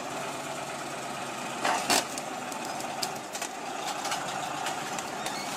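Heavy diesel engine running steadily at idle, with a sharp metallic knock about two seconds in and a lighter one a second later.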